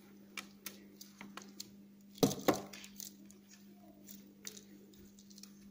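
Scattered light clicks and taps from hands handling fishing line and a small silicone stopper on a wooden table, with a louder pair of knocks a little over two seconds in. A faint steady hum runs underneath.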